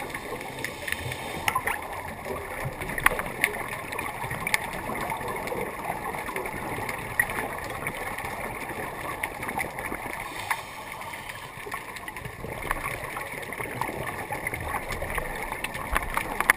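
Underwater noise heard through a dive camera's housing: a steady gurgling, bubbling hiss from scuba breathing, with many scattered short clicks.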